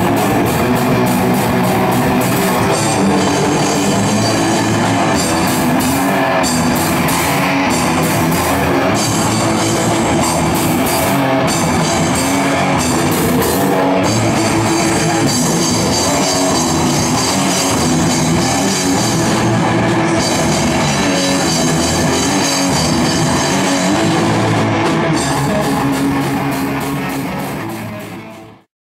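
Live metal band playing loud with electric guitar and drum kit, fading out near the end.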